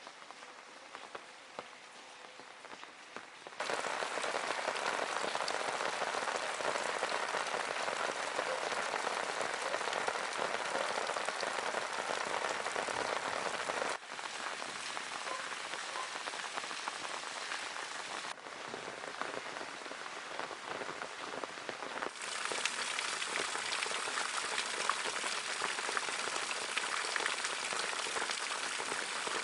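Rain falling on gravel and plants. At first it is light, with scattered separate drips. About three and a half seconds in it jumps suddenly to a dense, steady downpour hiss, which then shifts abruptly in loudness a few times.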